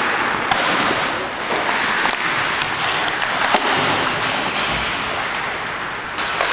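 Ice hockey play in an indoor rink: a steady hiss of skate blades on the ice, cut by sharp clacks of sticks and puck several times.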